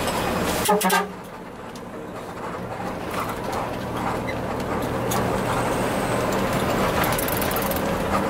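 Intercity bus engine heard from inside the cabin, growing louder as the bus accelerates, with a short horn blast about a second in.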